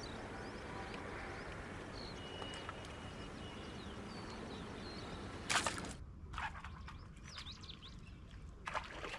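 Outdoor ambience with small birds chirping now and then over a steady background hiss. About five and a half seconds in, a brief loud rush of noise is followed by more chirping and scattered clicks, and a second short rush comes near the end.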